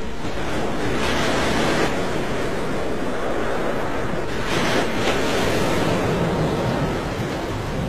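Churning, rushing water, swelling once about a second in and again about halfway through.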